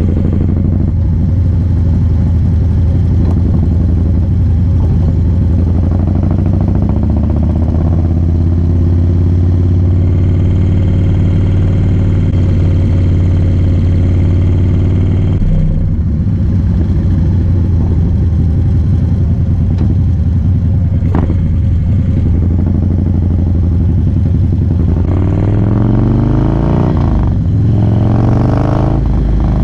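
2017 Harley-Davidson Low Rider S's Twin Cam 110 V-twin engine running at a steady cruise under way. Near the end the engine note climbs and drops a few times.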